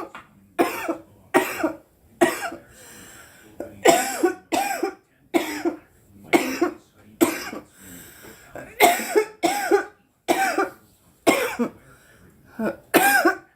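A woman coughing in a long fit, about twenty short coughs that come in runs of two or three with brief gaps for breath. It is a smoker's coughing fit after inhaling cannabis smoke.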